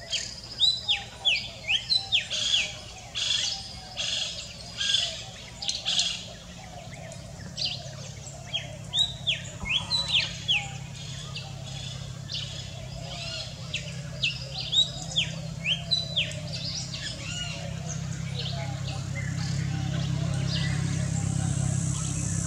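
Birds calling, a rapid series of short, downward-sliding chirps, thick in the first few seconds and thinning out later. A low motor hum grows steadily louder through the second half.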